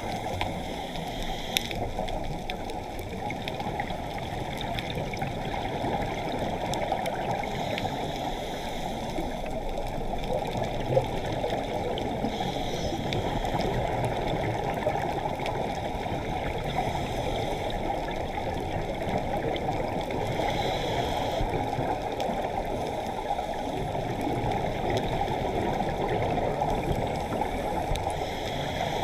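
Steady muffled water rushing and gurgling, as heard underwater through a camera housing, with brief fainter hissing every few seconds.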